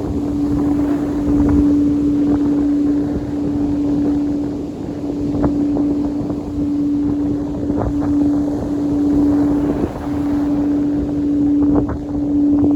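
A singing bowl sustaining one steady, pure tone that dips briefly now and then, over rough wind noise on the microphone.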